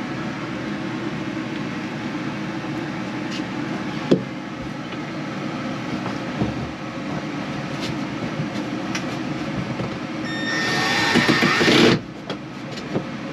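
Milwaukee cordless drill driving a screw into the wooden bunk frame. It runs for about a second and a half near the end with a rising whine, then stops abruptly. Before that there is a steady background hum and a single knock about four seconds in.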